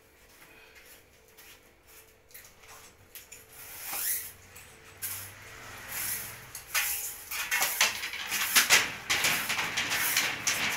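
Insulated electrical wires pulled and handled at ceiling conduit boxes: irregular rustling and scraping, starting about four seconds in and growing louder and busier toward the end.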